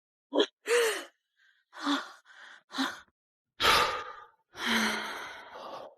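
A person gasping for air in several short, sharp breaths, then one long sighing exhale. It is the sound of someone recovering from anaphylaxis as she gets her breath back after an EpiPen injection.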